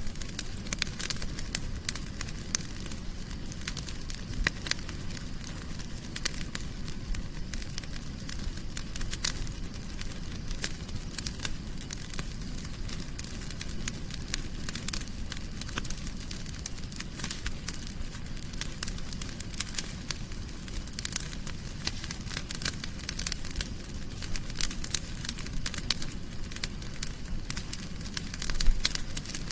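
Wood fire burning in a fireplace, crackling and popping continuously over a low steady rumble of the flames, with a denser flurry of pops near the end.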